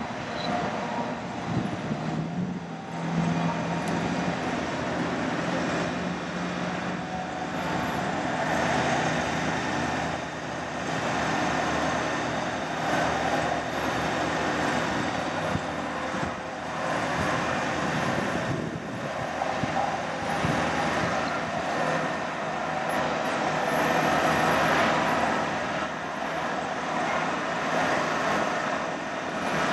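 Diesel engine of a Ford F-550 bucket truck running steadily while its Terex Hi-Ranger boom is raised, with a low hum under a rushing noise that swells and fades every few seconds.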